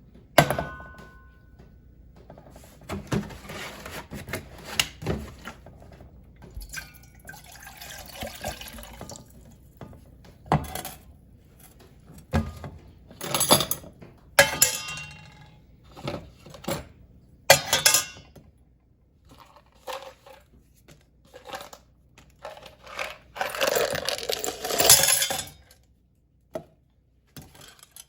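Scattered clinks and knocks of small hard objects, with water running for a couple of seconds near the end.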